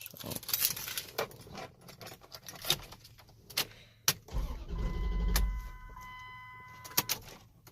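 Car keys jangling and clicking as the key is turned in the ignition, then a low thud about four seconds in and a steady electronic dashboard chime. No fuel pump priming whir is heard, the sign of a dead fuel pump circuit, here traced to a corroded fuel pump relay.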